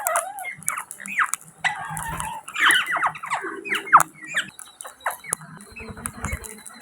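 A flock of Indian ringneck parrots giving many short, overlapping squawks and chirps that rise and fall quickly, among sharp clicks. There are two brief low rumbles.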